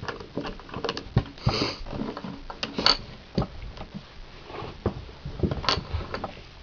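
Plastic Rubik's Cube pieces clicking and knocking irregularly as they are handled and pressed back into the half-assembled cube, with a short hiss about a second and a half in.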